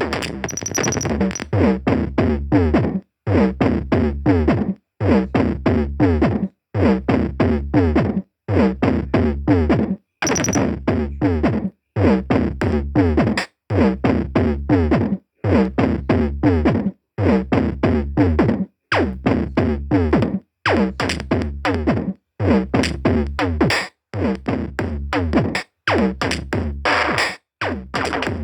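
Electronic music with a drum-machine beat and synthesizer, broken by short gaps of silence about every second and a half to two seconds.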